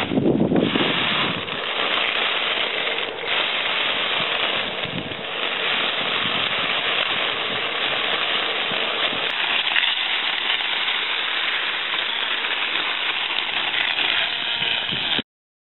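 Homemade K'nex lawn mower with a small mains-powered electric motor running, its blade spinning and chopping into grass with a dense, crackling noise. The sound cuts off abruptly near the end.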